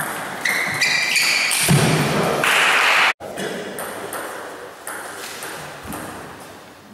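Table tennis ball clicking off bats and the table during a rally, with a burst of voices about two seconds in. After a sudden cut, the ball is bounced on the table a few times as the server gets ready to serve.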